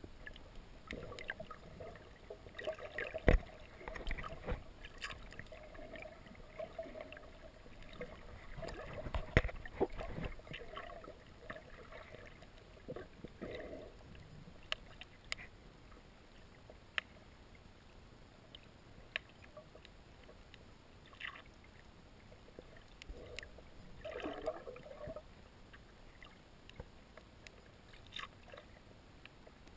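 Muffled underwater sound picked up through an action camera's waterproof housing. In the first part there is gurgling water noise, with two loud knocks about 3 and 9 seconds in. After that it is quieter, with scattered sharp clicks.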